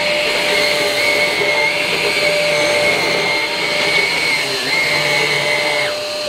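Numatic Quick cordless stick vacuum with its motorised floor head running on its normal (low) setting while being pushed over thick plush carpet: a steady high motor whine over a rush of air. Near the end the whine falls away and the sound cuts off as the machine is switched off.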